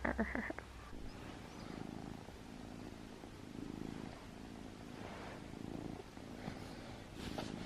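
Ragdoll kitten purring close by, a low soft purr that swells and fades about once a second.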